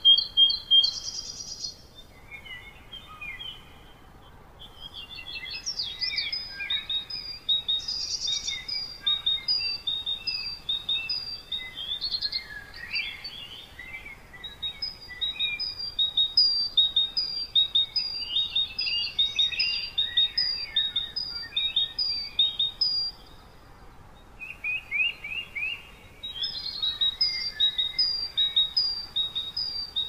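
Several songbirds singing at once: overlapping runs of short, high-pitched repeated chirps and quick trills, over a faint steady background hiss. The singing drops off briefly a couple of seconds in and again near twenty-four seconds.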